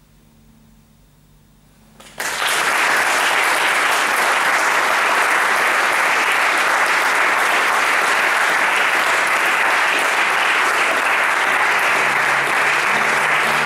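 After a short quiet moment, audience applause starts suddenly about two seconds in and continues as a steady, dense clapping.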